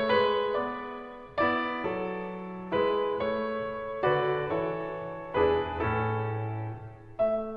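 Slow piano music: chords struck about every second and a half, each ringing and fading before the next.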